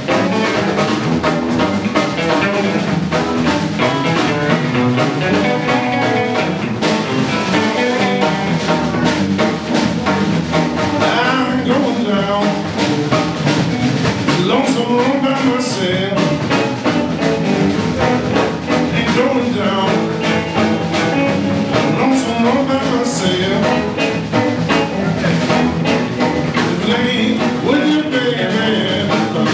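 Live blues band playing: two electric guitars, an upright double bass and a drum kit, at a steady beat.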